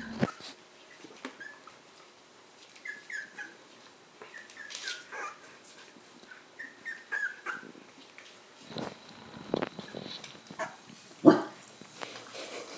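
Young corgi puppies giving short, high-pitched squeaks and whimpers, many small calls one after another through the first half. In the second half come a few louder thumps and knocks, the loudest near the end.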